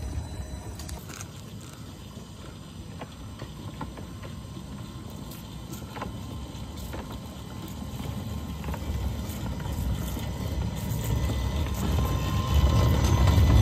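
Two-foot-gauge electric boxmotor car running on its AC-motor-driven truck. Its steel wheels rumble on the rails with scattered clicks and knocks, and the rumble grows much louder near the end as the truck rolls close by.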